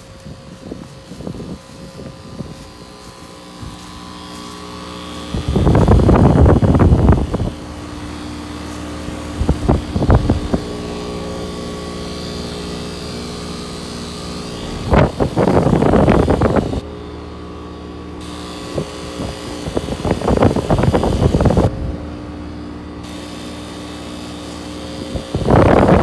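2-ton Heil 5000 heat pump outdoor unit running in heat mode: a steady hum of compressor and condenser fan that grows louder over the first few seconds as the microphone moves in close. Five loud gusts of wind buffet the microphone, each lasting a second or two.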